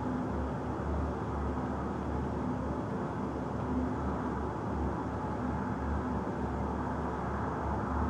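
Steady low rumble and hiss of distant city background noise, with no distinct firework bangs.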